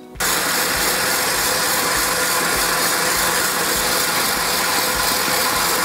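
Electric stand mixer running steadily with its whisk, beating the egg-yolk and maple-syrup base while butter is added for French buttercream. The motor noise cuts in suddenly just after the start.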